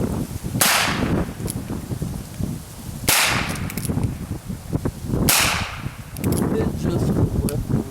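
Three shots from a Heritage Rough Rider .22 LR single-action revolver, each a sharp crack with a short ringing tail, about two and a half seconds apart, over a steady low rumble.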